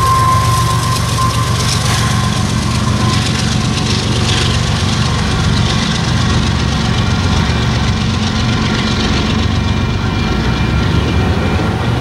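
Diesel locomotive at the tail of a double-stack freight train passing close by: a steady low engine rumble with wheel-on-rail noise. A high tone falls slightly in pitch and fades away over the first few seconds.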